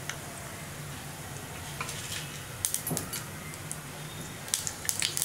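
Mustard seeds sizzling in hot oil in a pan during tempering, with scattered sharp pops about halfway through that grow dense and loud near the end as the seeds start to splutter.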